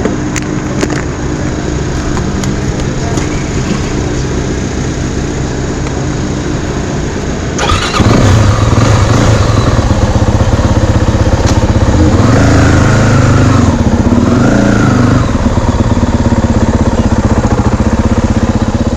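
Dirt bike engine idling steadily, then about eight seconds in a much louder engine sound takes over abruptly, rising and falling in pitch a few times as it is revved.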